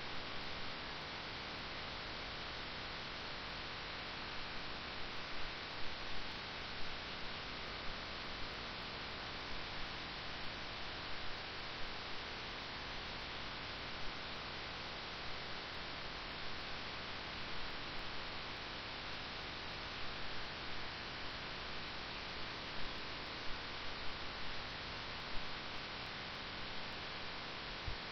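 Steady hiss and hum of the audio line with no one speaking, with faint irregular clicks and crackles scattered through it.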